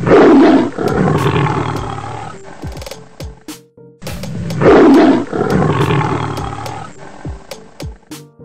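Lion roaring twice, about four and a half seconds apart; each roar is loud, drops in pitch and trails off over a couple of seconds. Background music plays underneath.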